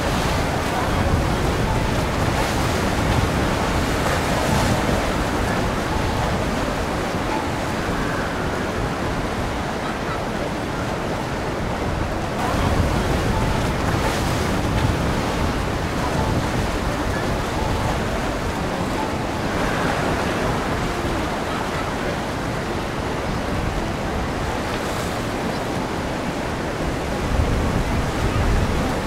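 Wind buffeting the microphone over the rush of water along a moving boat, a steady noise with gusty low rumbling.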